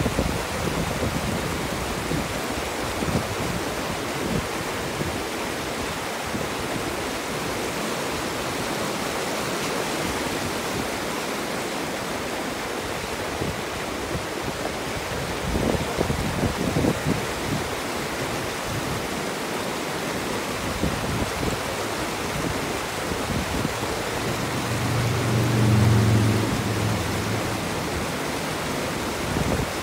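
Whitewater rapids of a fast mountain stream rushing steadily over boulders, with gusts of wind buffeting the microphone now and then. Near the end a low hum swells and fades over about two seconds.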